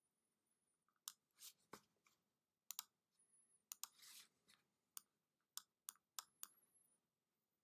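Faint computer mouse clicks, about a dozen at irregular intervals, with two short scraping sounds about one and a half and four seconds in.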